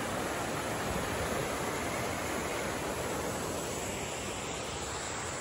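Fast mountain river rushing over rocks and small white-water rapids: a steady, even rush of water.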